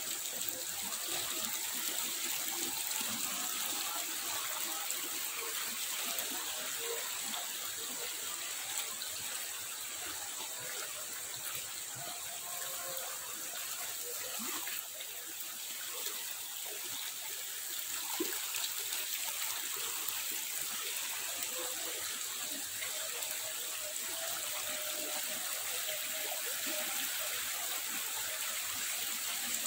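A small, fast-flowing, stone-lined stream running over rocks: a steady rush of water.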